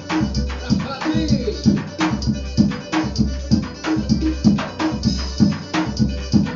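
Zabumba played in a forró groove: deep beats on the drum's head and sharp, crisp strokes, in a pattern that repeats about once a second.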